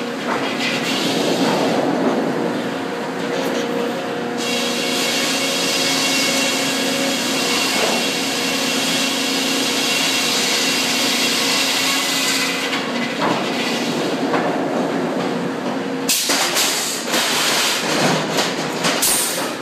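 Sawmill head rig running: a circle headsaw hums steadily while the shotgun-fed carriage takes a hardwood log through it, with a loud hiss of the cut starting about four seconds in and stopping suddenly past the middle. Near the end, a run of sharp clanks and knocks.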